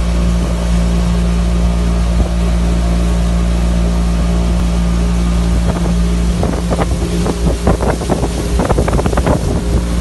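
Motorboat engine running steadily at speed, with water rushing in the wake. About two-thirds of the way in, irregular gusts of wind start buffeting the microphone over the engine.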